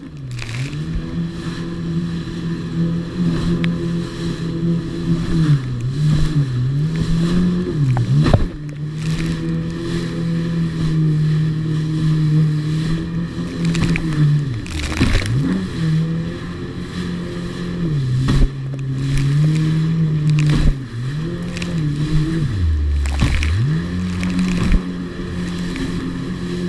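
Jet ski engine running at speed, its pitch dipping and climbing back several times as the throttle eases off and opens again over the waves, with the deepest dip near the end. Sharp knocks of the hull hitting waves and spray come through the run.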